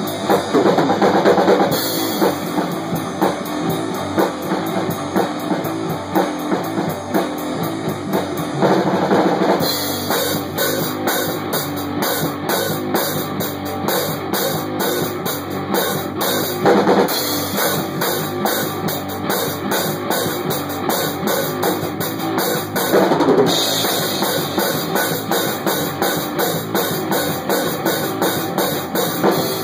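Fast rock music led by a drum kit played hard, with bass drum and guitar, the rhythm driving on without a break and changing section every several seconds.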